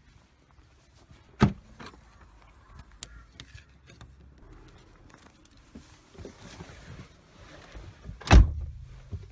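Car doors shutting: a thud about a second and a half in and a louder one near the end, over a faint low rumble from the car.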